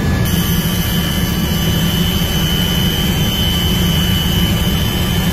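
Helicopter cabin noise heard from inside the cockpit: a steady, loud drone of engine and rotor, with a thin high whine that comes in just after the start and holds steady.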